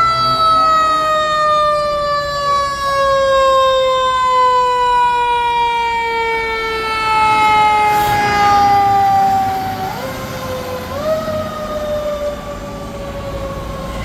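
Fire truck siren wailing: one long, slowly falling tone, pushed back up twice in short steps about ten and eleven seconds in, then falling again as the tower ladder truck drives off.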